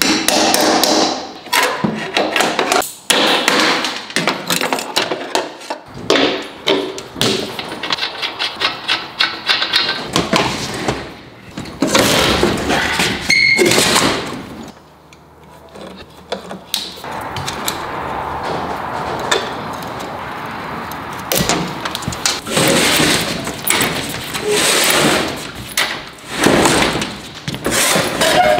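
Metal clanks and knocks of hand tools working on a gas-engine-driven air compressor unit as it is taken off a service truck bed, with a run of quick clicks about eight seconds in and a steadier stretch of noise past the middle.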